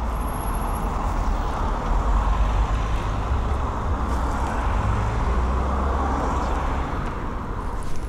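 Road traffic: cars passing on a busy road, with a steady low rumble of wind on the microphone. The traffic noise swells through the middle and eases near the end.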